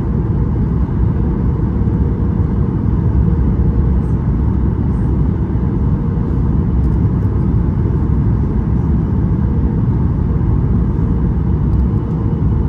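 Steady low rumble of Boeing 737 MAX 8 cabin noise heard from inside the cabin: engine and airflow noise, unchanging throughout.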